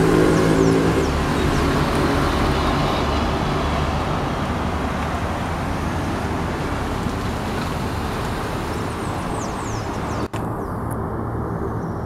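Steady road-traffic noise, with a vehicle's low engine hum strongest in the first second. A few faint, high, falling chirps come near the start and again about nine seconds in, and the sound drops out briefly about ten seconds in.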